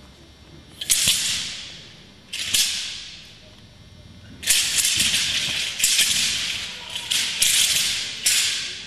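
Wushu broadsword (dao) whipped through the air, its thin blade rattling with each sharp swish, every swish fading over about a second in a reverberant hall. Two swishes come first, then a quick run of about six close together in the second half.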